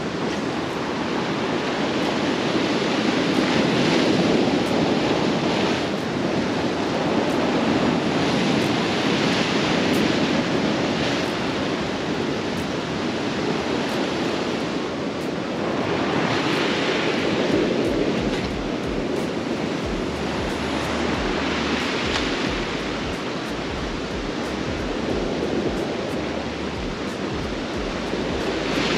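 Sea waves surging and breaking on a rocky shore, swelling and easing about every five or six seconds. Wind buffets the microphone in the second half.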